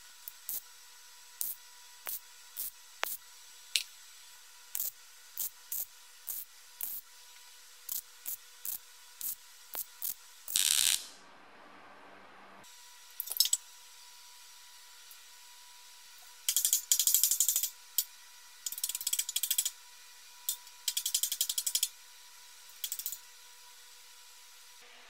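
MIG welder tack welding a small steel patch panel: a string of short crackling bursts about a second apart, a longer, smoother burst near the middle, then several crackling runs of about a second each in the second half.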